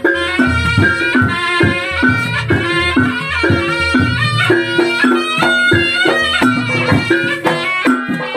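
Reog gamelan music: a wavering, reedy wind melody over repeated low gong-chime notes and drum strokes, accompanying the reog dance.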